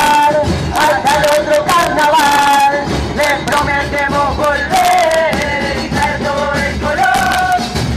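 Murga chorus singing together over bass drums and crashing cymbals (bombo con platillo), the close of the troupe's farewell song, the retirada.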